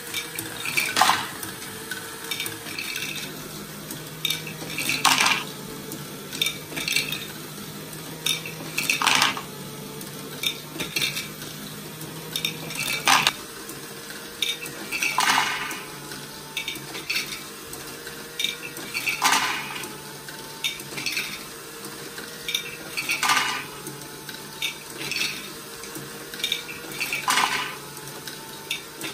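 LEGO Technic ball machine with geared Hailfire wheels and buckets running: small plastic balls clicking and clattering through the plastic mechanism over a faint steady motor hum. A louder clatter comes about every four seconds.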